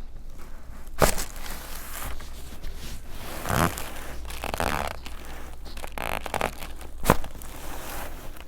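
Two sharp cracks during chiropractic adjustments, about six seconds apart, with rustling of clothing and the treatment table between them.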